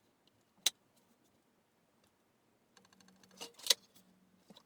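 Light clicks and taps of small control-panel components (push buttons and switches) being handled and set down on scrap sheet metal: one sharp click under a second in, a quick patter of small ticks around three seconds, and a louder click just before four seconds.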